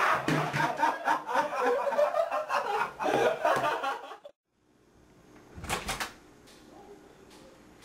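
A group of teenage boys laughing hard together. The laughter cuts off suddenly about four seconds in, and a couple of seconds later a door clunks open.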